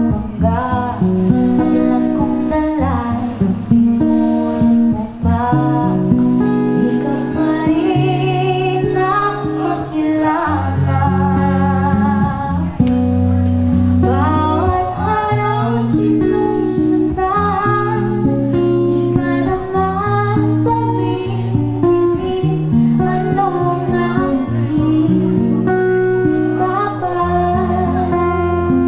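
Live band music: a woman singing lead over guitar and bass.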